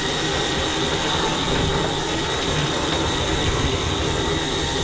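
Offshore sportfishing boat's engines running steadily under wind and water wash, with a thin steady whine over the noise, as the boat backs down on a hooked fish.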